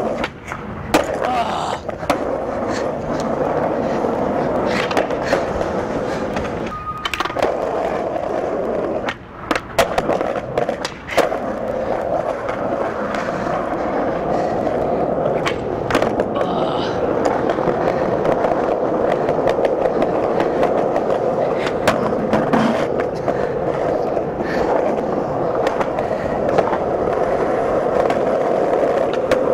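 Skateboard wheels rolling over rough city pavement in a steady rumble, broken now and then by sharp clacks of the board hitting the ground.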